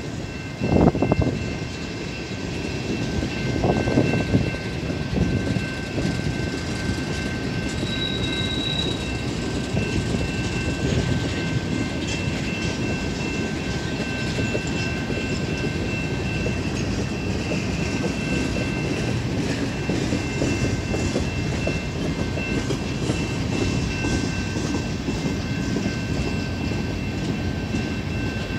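CN freight train rolling past: the steady rumble and clatter of the cars on the rails, with a few loud knocks in the first few seconds. Several thin, steady high-pitched tones run over it.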